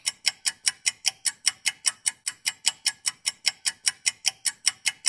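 A ticking sound effect: rapid, even ticks, about five a second.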